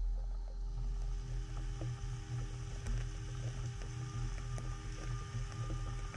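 Haas VF-2SS CNC vertical mill cutting under flood coolant: a steady spindle hum and low rumble with coolant spraying and splashing, and a few faint ticks from the cut.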